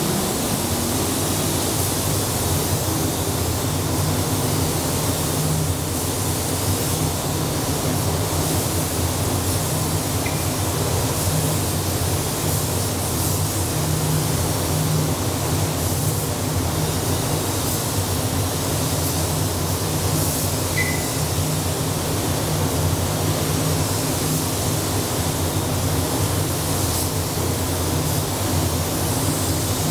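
SATA gravity-feed paint spray gun hissing steadily with compressed air as paint is laid on a car body, over the low hum of the paint booth's ventilation fans.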